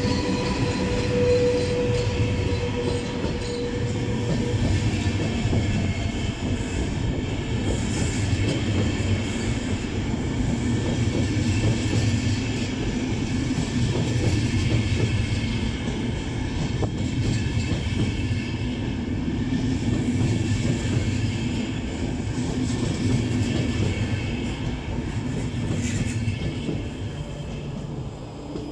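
Russian Railways sleeper coaches rolling slowly along a station platform: a steady rumble of wheels on the rails that swells and eases as each bogie passes, with a faint high-pitched wheel squeal over it.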